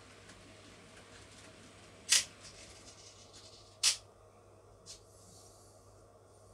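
N gauge model train running quietly along the track, a faint hiss that thins out about four seconds in. Two sharp clicks sound about two seconds in and just before four seconds, with a fainter click about a second later.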